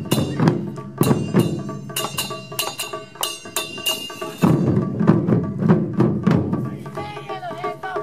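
Japanese taiko drum ensemble playing: drum strikes mixed with clashing chappa (small brass hand cymbals) that ring on between the hits, with one heavy low drum hit about halfway through.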